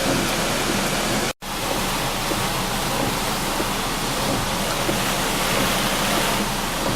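Steady rush of a rain-swollen river in flood, with a brief break about a second and a half in.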